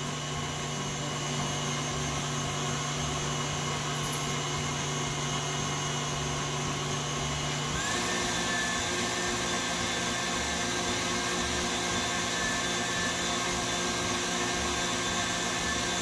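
Electric stand mixer running steadily, its wire whisk whipping egg whites and sugar into a stiff-peak meringue in a steel bowl. About eight seconds in, its pitch steps up and it gets slightly louder as the speed is changed.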